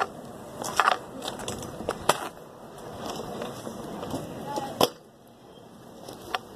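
Kick scooter rattling and rolling over asphalt, with several sharp clacks, the loudest about five seconds in.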